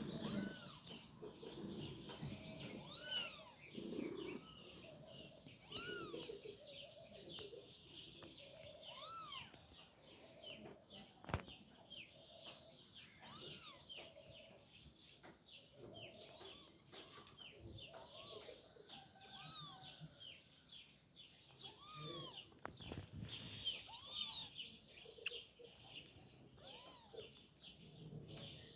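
Kitten meowing repeatedly, short high rise-and-fall meows every two to three seconds: a kitten calling for its mother, uneasy outdoors. A single sharp click sounds about halfway through.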